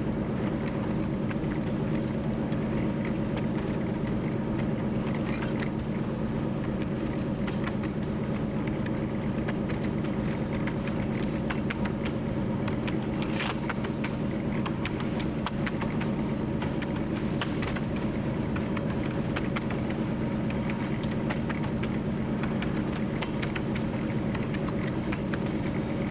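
TU7 narrow-gauge diesel locomotive's engine running steadily under way, with scattered clicks and rattles of the running gear on the track and two louder knocks partway through.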